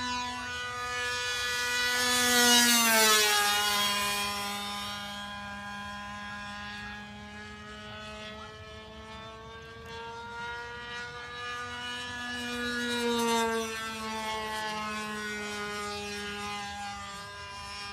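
Radio-controlled model airplane engine running steadily at a high pitch as the plane makes two passes; each pass swells in loudness, and the pitch drops as it goes by, about 3 seconds in and again about 13 seconds in.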